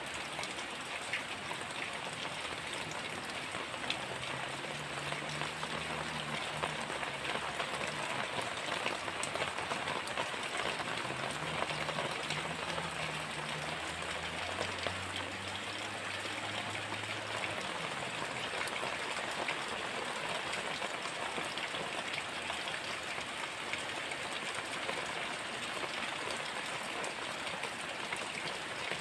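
Heavy rain falling steadily, a dense patter of drops. A faint low hum runs underneath for several seconds in the middle.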